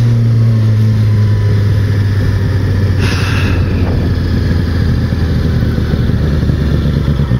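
Suzuki GSX-R600 inline-four motorcycle engine running steadily at low revs. A short hiss cuts across it about three seconds in.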